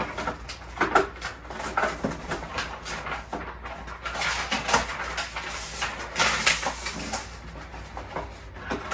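Cardboard and plastic packaging rustling, with irregular small clicks and knocks, as a new robot vacuum's box is unpacked.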